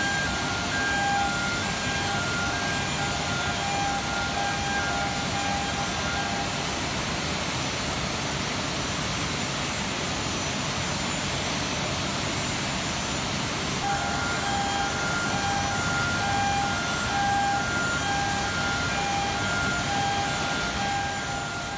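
Steady industrial roar at a blast furnace taphole, where the mud gun machine stands. A warning beeper sounds in repeated short pulses through roughly the first third and again from about two-thirds of the way through.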